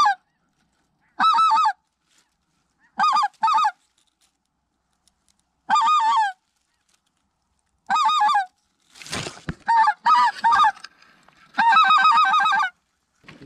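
Goose honking in about seven short bursts, each of a few quick honks, spaced a second or two apart. Some rustling and knocks come in around the middle.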